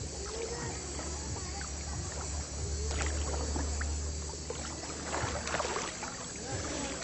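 River swimming-hole ambience: water splashing and lapping, with faint distant voices, over a steady low rumble. The splashes come in clusters about three seconds in and again between five and six seconds in.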